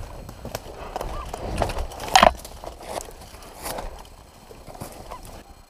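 Footsteps and rustling through dry leaf litter with gear rattling as a person moves through woodland, with one sharp, short loud sound about two seconds in and a smaller one near four seconds.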